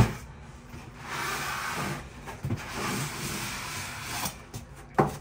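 Cardboard box and packaging rubbing and scraping as a heavy stand mixer is lifted out of it, with a sharp knock at the start and a thump near the end.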